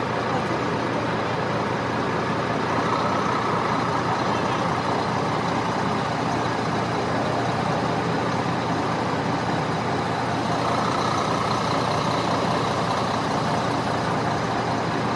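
Steady engine and road noise of a moving road vehicle, with a mid-pitched hum swelling twice.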